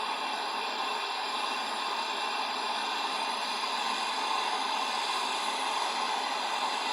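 MAP gas torch flame burning with a steady hiss while brazing a refrigerant recharge valve onto a fridge's copper line.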